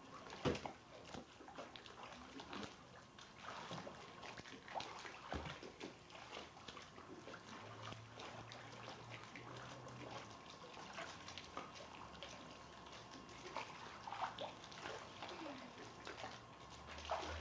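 Swimming-pool water splashing and sloshing as swimmers move through it, with many small irregular splashes and a sharp knock about half a second in.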